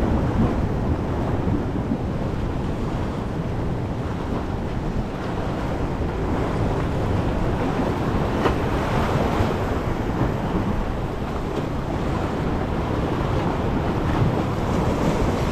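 Waves washing and breaking over jetty rocks, with wind buffeting the microphone: a steady rushing noise that swells and eases without a break.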